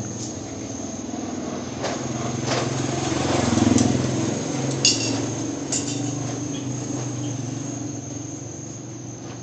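Steady high insect drone under a low motor hum that swells to a peak a few seconds in and then fades, like a vehicle passing. A few sharp clicks fall in the middle, the sharpest about five seconds in.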